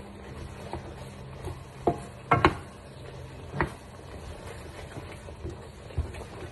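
Wooden spatula stirring a thick cream pasta sauce in a frying pan: soft scraping with a few short knocks against the pan, the loudest a quick cluster about two and a half seconds in.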